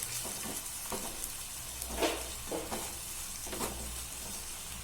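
Onion, tomato and ginger-garlic paste sautéing in hot oil in a pan, with a steady sizzle and several short scrapes as a spatula stirs it, the loudest about two seconds in.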